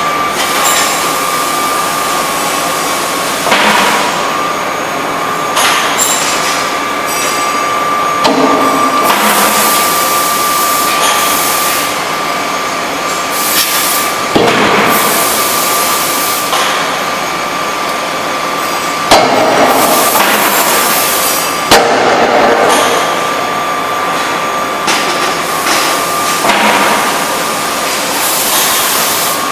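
Die forging hammer striking a red-hot billet: a series of heavy, unevenly spaced blows, with bursts of hiss between them, over the machine's steady running hum and high whine.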